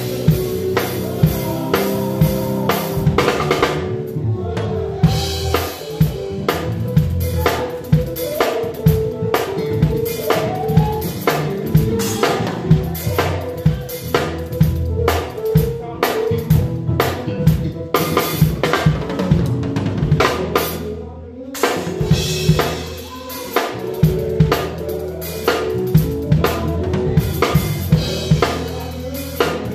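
Live band playing an upbeat gospel song, led by a drum kit: steady kick, snare and cymbal strokes over held chords and bass notes. The drums break off briefly about two-thirds of the way through, then come back in.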